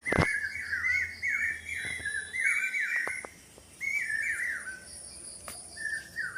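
A bird calling, a run of short downward-sliding chirps at about two a second, with a pause about three and a half seconds in. A steady high thin whine runs behind it.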